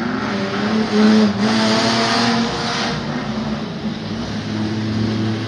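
Several old saloon race cars' engines running on a short oval track, their revs rising and falling as they pass, loudest about a second in.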